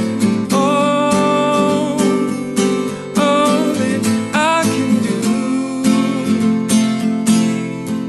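Acoustic guitar strummed steadily, with a man singing over it in places.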